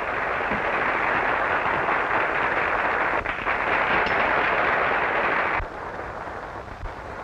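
Audience applauding on a 1930s film soundtrack; the clapping stops abruptly about five and a half seconds in, leaving only the soundtrack's hiss.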